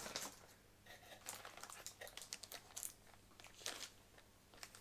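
Faint, irregular rustling and crinkling of packaging as the parts of a boxed car alarm kit are handled and unpacked.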